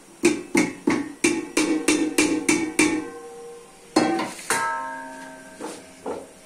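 Stainless steel pot clanking against a steel mixing bowl holding cut raw potato chips, about three clanks a second for some three seconds. About four seconds in comes one louder clang, with the steel ringing on for about a second, followed by a few lighter knocks.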